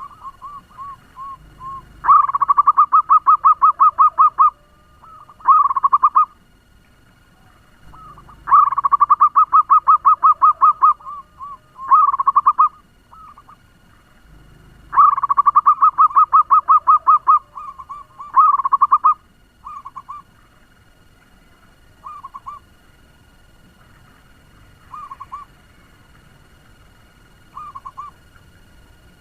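Zebra dove (perkutut) cooing: three loud bouts of rapid, fast-paced trilled coos, each ending in a couple of longer notes, then softer single coos every few seconds.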